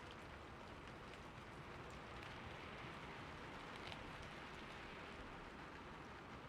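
Quiet, steady rain falling, with faint individual drops ticking through it. No thunder is heard.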